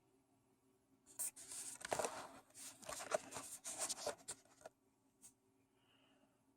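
Trading cards being handled: a scratchy rustling of card stock sliding and scraping against other cards for about three and a half seconds, ending with a small click.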